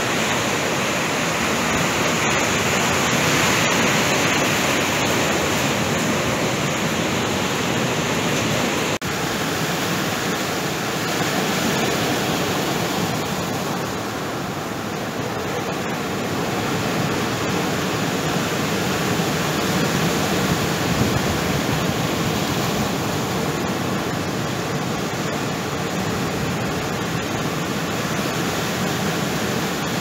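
Rough surf breaking and washing up over a pebble beach: a steady, loud rush of water.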